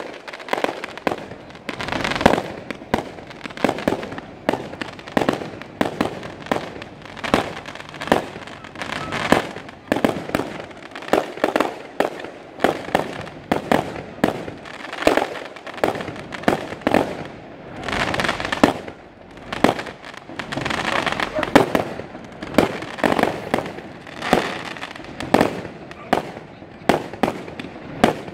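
Fireworks display: aerial shells bursting in quick succession, a few bangs a second throughout, with stretches of denser crackling.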